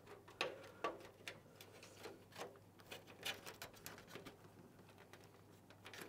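Faint, scattered clicks and scrapes of a PC case's plastic front panel and its retaining clips being squeezed with pliers and worked loose. The sharpest clicks come about half a second and a second in.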